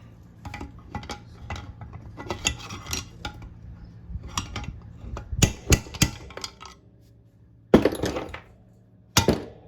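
Metal parts of a two-stroke lawnmower engine clinking, scraping and knocking as it is worked apart by hand to free the piston. There is a run of light clinks, then several louder metal knocks in the second half.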